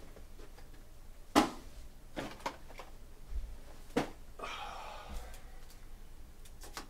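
Handling noises: a few sharp taps and clicks, the loudest about a second and a half in, and a short rustle midway through.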